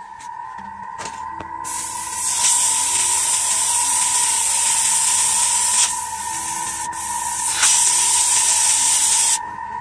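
Paint being sprayed, a hiss in several long bursts. It starts about a second and a half in and stops shortly before the end, over a steady high whine.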